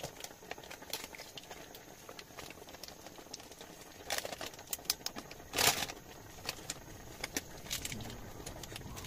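Plastic seasoning sachets crinkling and rustling as they are squeezed out over a pot and put down, with scattered small clicks. There are two louder rustles about four and five and a half seconds in.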